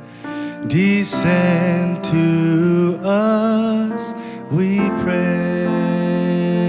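Music from the closing bars of a Christmas carol arrangement: held, sustained notes, with a few notes that slide up into pitch and one that wavers.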